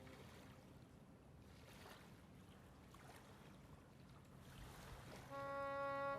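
Faint, steady outdoor background noise. About five seconds in, soft orchestral score enters with long held notes.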